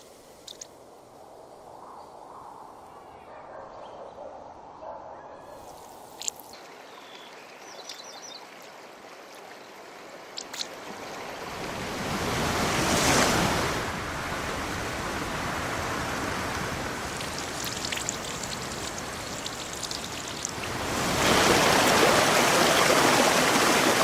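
Water sound effects: a faint stretch with a few small clicks, then a rush of water like surf or a fast stream swelling in after about eleven seconds, holding steady and surging louder again near the end.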